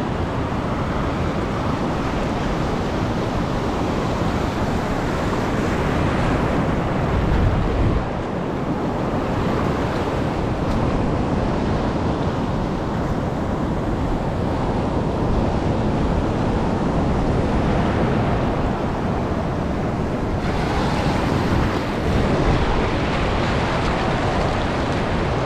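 Heavy surf of a rough sea washing steadily onto the shore, with wind buffeting the microphone; a stronger gust hits it about seven seconds in.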